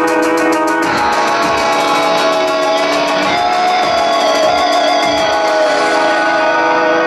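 A rock band playing live, led by guitars, with a steady hi-hat or cymbal beat that drops out about two-thirds of the way through while a lead line bends in pitch.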